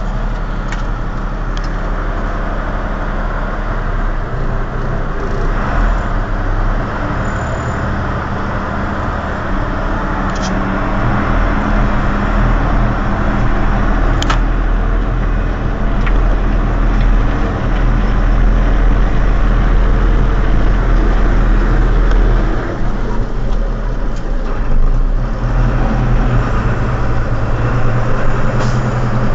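Valtra 8950 tractor's six-cylinder diesel engine running steadily, growing louder about a third of the way in.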